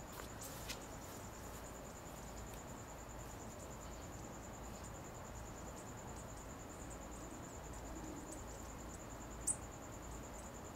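A cricket chirping in a steady, fast, high-pitched pulse, with one sharp click about nine and a half seconds in.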